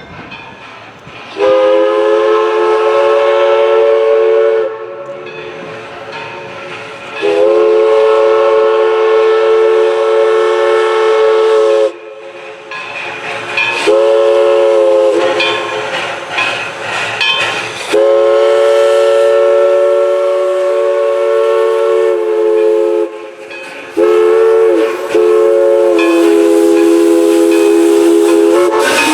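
Steam whistle of East Broad Top 2-8-2 locomotive No. 16 blowing a sequence of blasts, several notes sounding together as a chord: long, long, short, long (the grade-crossing signal), then a short blast and another long one. Quieter train running noise and steam hiss fill the gaps between blasts.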